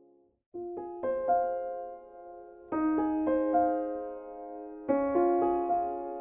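Slow solo piano music: chords struck and left to ring out, starting about half a second in, with a new chord about every two seconds.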